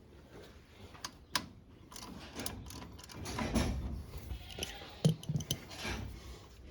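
Hand tools working on a tractor's starter: scattered sharp metal clicks and clinks, with a stretch of scraping and rustling in the middle.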